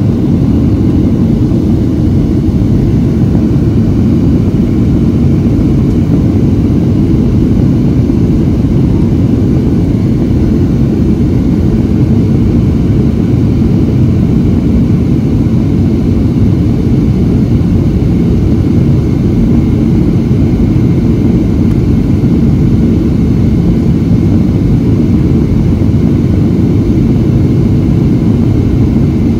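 Steady cabin noise inside a Boeing 737-700 on its landing approach: a dense, low rush of airflow and CFM56 engine drone, with a faint steady whine above it.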